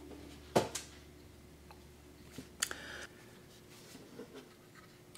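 Quiet handling noises on a tabletop: a sharp knock about half a second in, then a short rattling knock about two and a half seconds in, with a few faint taps between.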